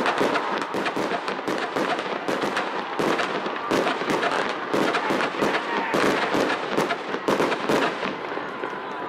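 Fireworks going off in a rapid, irregular string of cracks and bangs, several a second, thinning out near the end.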